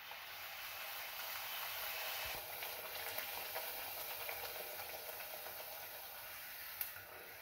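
A puri deep-frying in hot oil, a steady sizzle as it is pressed under a slotted spoon and puffs up, swelling a little in the first couple of seconds and then easing. A single light click near the end.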